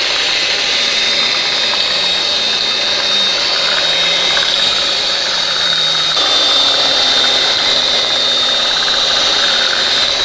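Electric hand mixer running steadily at speed, its twin beaters whisking thin cake batter in a bowl, with a constant high motor whine.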